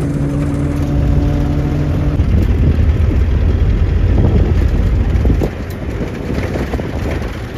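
Off-road 4x4 engine running steadily under way. After about two seconds it gives way to a louder, uneven low rumble of the moving vehicle, which drops off noticeably a couple of seconds before the end.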